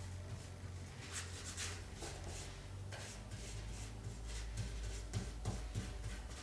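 Hand work at close range: a few rubbing or scraping strokes, then several small knocks, over a steady low hum.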